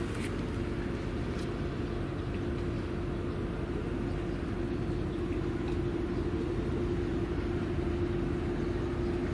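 Steady low rumble with a constant droning hum, with a few faint ticks.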